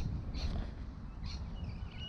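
Wind noise buffeting the microphone outdoors, with a few faint bird chirps.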